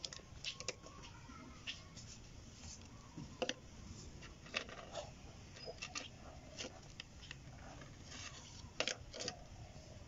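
Scattered light clicks and taps at irregular intervals, of multimeter test probes and clip leads being handled against a microwave high-voltage diode on a bench mat.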